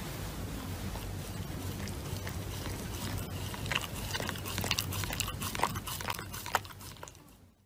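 A Shiba Inu chewing and tearing at a paper sheet face mask: scattered crinkling clicks over a low steady background, growing busier about halfway through and fading near the end.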